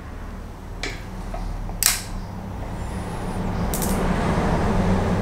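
A few sharp metallic clicks from a torque wrench and socket on the oil pump sprocket nut of a BMW M52B28 engine as the nut is tightened to torque, heard over a steady low hum.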